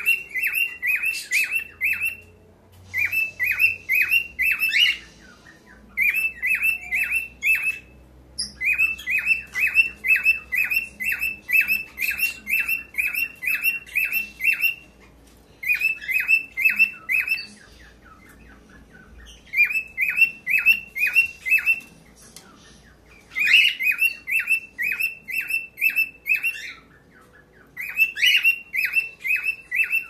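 Cockatiel mating call: fast strings of short, sharp chirps, about four or five a second, in bouts of a few seconds with short pauses between.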